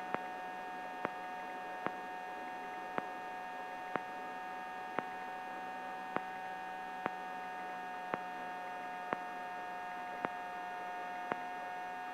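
Eurocopter AStar helicopter running steadily in a hover, heard as a continuous whine made of several steady tones, with a sharp tick about once a second.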